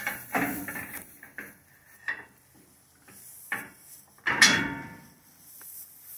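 Steel rear cut gate of a Hughes stock trailer being swung shut on its slam latch: several light metal clanks and rattles, then one loud ringing clang about four and a half seconds in as the gate slams and latches.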